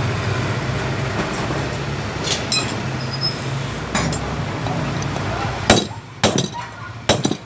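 Hammer striking a ceiling fan's motor body from behind to knock out a bearing stuck inside it: a few light metallic clinks over a steady background hum, then four sharp metal strikes in the last two seconds.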